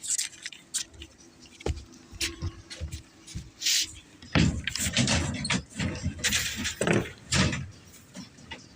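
Scattered sharp metallic clinks and knocks from steel reinforcing bars being handled for a concrete deck, busiest in the middle.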